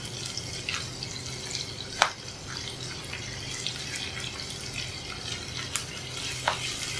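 Parboiled bitter gourd slices, onions and green chillies sizzling in hot oil in a frying pan while being stirred with a spatula. A steady hiss runs throughout, broken by a few sharp knocks of the spatula on the pan; the loudest comes about two seconds in.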